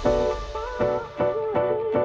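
Background music: a melody of short notes, several sliding in pitch, over a lower accompaniment.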